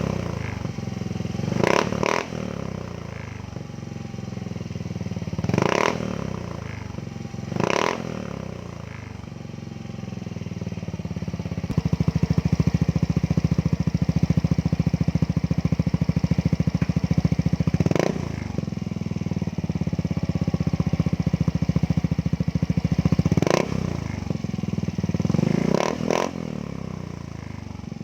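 Yamaha Gravis scooter's single-cylinder engine running through an Apido V3 aftermarket exhaust pipe, idling with several sharp throttle blips. From about twelve seconds in, it holds a louder, faster running speed for roughly ten seconds, then drops back to idle and is blipped again.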